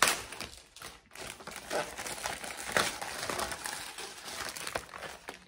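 Packaging crinkling and rustling as a letter board kit is unwrapped by hand, with irregular small clicks and crackles.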